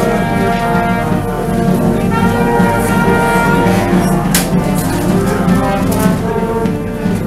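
Brass band playing live: held chords that change every second or so, with one sharp hit about four seconds in.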